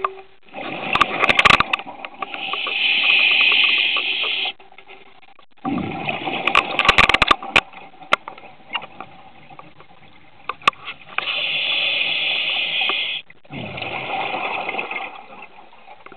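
Scuba regulator breathing underwater, two slow breaths. Bursts of exhaled bubbles alternate with a steady rushing hiss of air drawn through the regulator, with quiet gaps between breaths.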